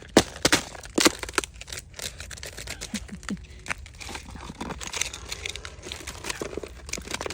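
Footsteps crunching through frozen snow: a quick run of sharp crunches in the first second and a half, then softer, denser crinkling steps.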